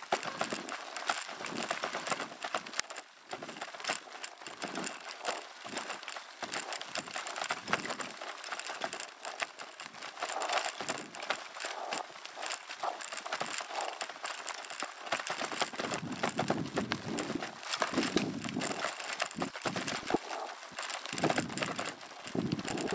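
Bicycle rolling over a rough dirt track: tyre crunch with a constant clatter of small knocks and rattles as the bike and its camera boom bounce over the bumps.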